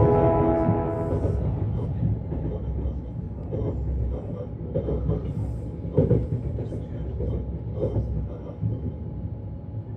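Lastochka electric train running on the rails: a steady low rumble with occasional short knocks, as a chime's last notes fade out in the first second or so.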